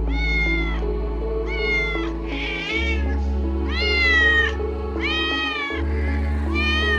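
A domestic cat meowing about six times, each meow under a second long, rising then falling slightly in pitch, one of them fainter, over background music with sustained low notes.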